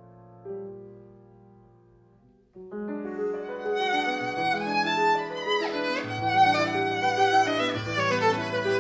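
Viola and piano playing classical music: a soft piano note fades out over the first couple of seconds, then about two and a half seconds in the viola comes in loud over the piano with a full, wavering melody.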